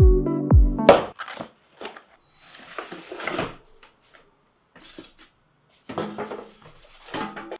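Electronic background music with a steady beat stops about a second in. It gives way to hands working with tools and materials at a workbench: scattered clicks and knocks, a scraping rustle of about a second, and several short clusters of clatter.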